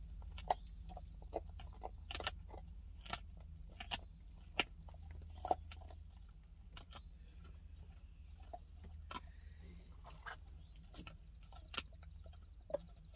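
Dogs gnawing beef neck bones: irregular sharp cracks and clicks of teeth on bone, about one or two a second, over a faint steady low hum.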